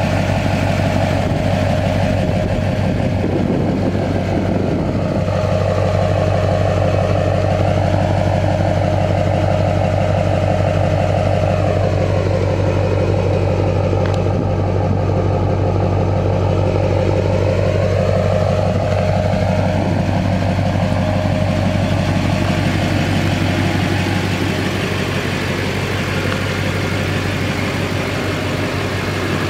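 Straight-piped 6.6-litre LMM Duramax V8 turbo-diesel idling steadily, its tone shifting slowly.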